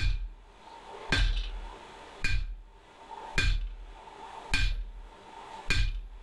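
Hand hammer striking the top of a red-hot sucker-rod bar standing in an anvil hole, upsetting it: six evenly spaced blows a little over a second apart, each with a short metallic ring. The blows are dragged across the end to pull the bent shank back straight. A faint steady hum runs underneath.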